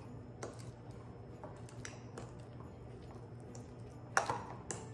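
Metal fork mashing soft cream cheese in a ceramic bowl: faint squishy scrapes and light clinks of the fork against the bowl, with a sharper clink about four seconds in.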